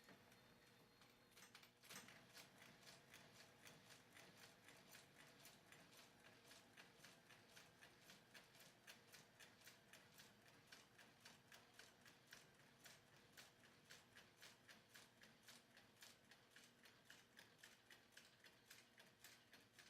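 Near silence with faint, even ticking, about two to three ticks a second, starting about two seconds in.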